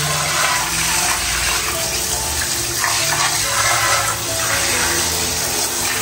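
Running water splashing steadily over a snapping turtle as it is rinsed in a small bathroom.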